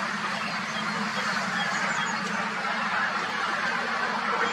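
Birds calling: many short, high chirps over a steady, dense background of calls and outdoor noise.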